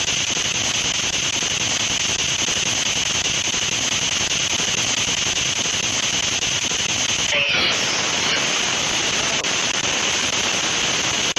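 Ghost box sweeping through FM radio frequencies, giving a steady hiss of radio static. About seven and a half seconds in, the static briefly gives way to a short snatch of pitched radio sound.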